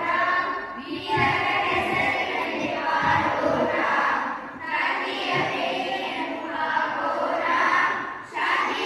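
A group of voices singing a song together in long phrases, with a short breath between phrases about every three to four seconds.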